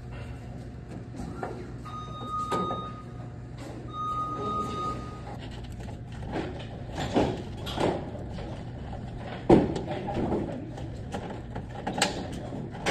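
Heavy electrical cables and tools being handled at a panel: scrapes and sharp knocks, the loudest about two-thirds of the way through, over a steady low hum. Two short steady high tones sound about two and four seconds in.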